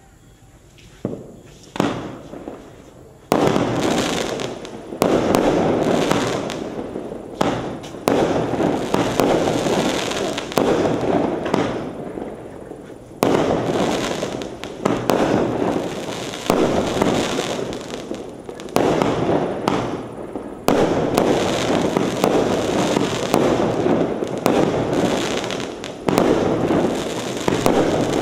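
Firework barrage cake (42-shot) firing its shots: a couple of small pops, then from about three seconds in a sharp launch-and-burst every second or two. Each burst is followed by dense crackling from its crackling-star effects.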